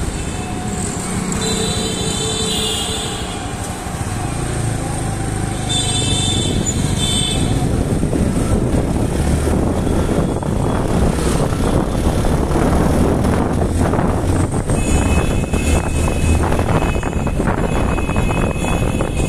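Motorcycle engine running under way, with wind noise, heard from the rider's seat; it gets a little louder about eight seconds in. Other vehicles' horns sound a few times.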